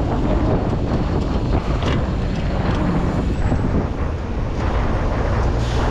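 Steady wind rushing over the microphone of a camera riding on a moving mountain bike, with a low rumble underneath.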